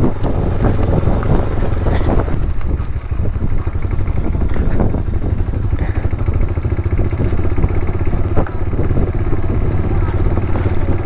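Motorcycle engine running steadily at low speed while riding, a low rumble with rapid, even firing pulses.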